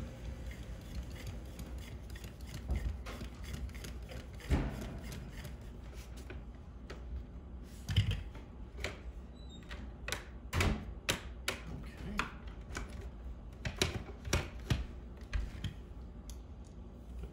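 Hand screwdriver driving screws into a plastic pet-door frame, with the frame and flap being handled: a string of irregular sharp clicks and light knocks, thicker in the second half.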